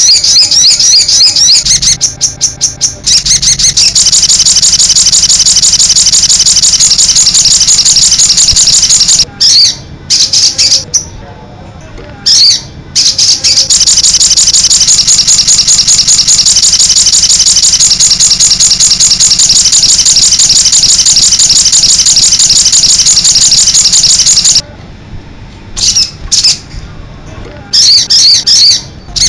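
Sogon bird calling in long, loud, rapid rattling runs of high repeated notes, broken by a few short pauses.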